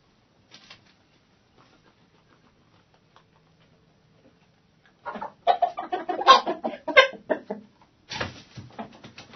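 Chickens in a hen house: faint scratching and ticking at first, then from about five seconds in a loud burst of rapid clucking that lasts a couple of seconds, and a second run of clucking just before the end.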